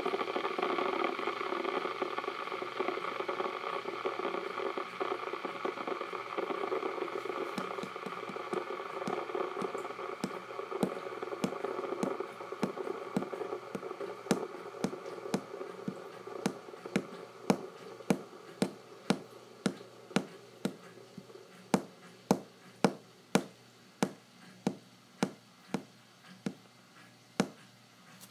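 Fidget spinner spinning flat on a tabletop during a spin-time test: a steady bearing whir that slowly fades as it slows down. From about ten seconds in, light, regular clicks come a bit under two a second and become the loudest sound near the end.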